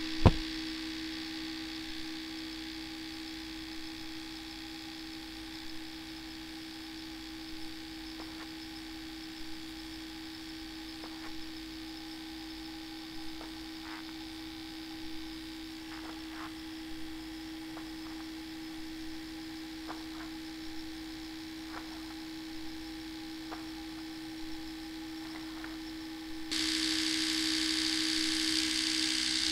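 Steady electrical buzzing hum with faint clicks scattered through it. There is a sharp knock just after the start, and about three seconds before the end a louder hiss joins the hum, then both cut off abruptly.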